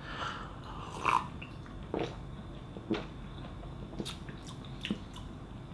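Sipping and swallowing a carbonated energy drink from a glass, then tasting it with small mouth and lip clicks. There are about six short, quiet gulps and clicks, roughly one a second.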